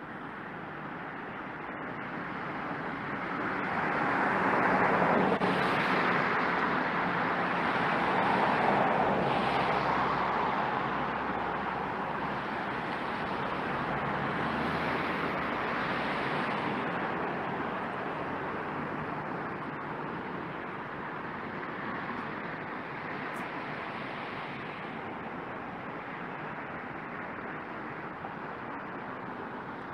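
Road traffic: a steady hum of passing vehicles, with the noise swelling and fading as several pass, loudest about five and nine seconds in.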